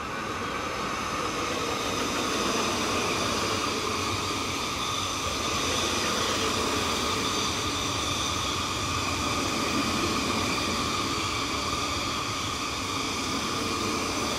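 Refurbished MTR East Rail electric multiple unit (MLR stock) passing at speed without stopping: a steady rumble of wheels on the rails with a high, steady whine over it. It grows louder over the first couple of seconds as the train comes alongside, then holds.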